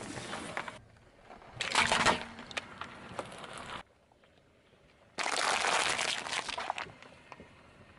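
Car tyre slowly rolling over and crushing objects on asphalt: a crackling crunch for about two seconds, then a near-quiet gap, then about five seconds in a plastic punnet of cherry tomatoes crackling and splitting under the tyre for another two seconds.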